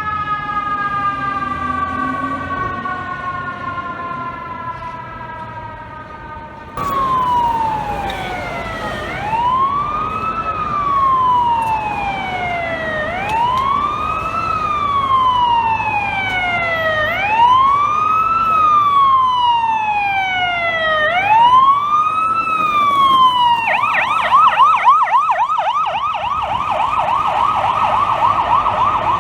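Fire truck sirens. A siren winds slowly down in pitch for the first few seconds. About seven seconds in, an electronic siren starts a wail that rises and falls about every four seconds, then switches to a rapid yelp for the last five seconds or so.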